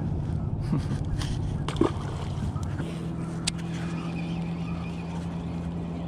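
Steady low motor hum. A sharp knock comes about two seconds in, and a brief click follows near the middle.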